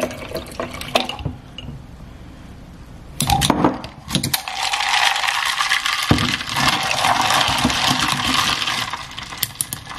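Matcha being poured over ice and milk in a glass mason jar, then ice cubes clinking and rattling against the glass as they are stirred with a straw. The stirring is a dense, steady clatter that begins about four seconds in, after a few louder clinks.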